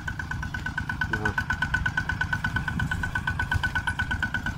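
Small homemade tractor's engine running steadily with a rapid, even chug of about nine beats a second.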